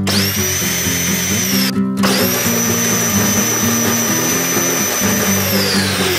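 Upgraded 775 electric drive motors and gearbox of a Power Wheels drag car whining at high speed as the rear wheel spins. The whine rises quickly at the start, breaks off briefly just before two seconds, comes back steady, and begins winding down in pitch near the end.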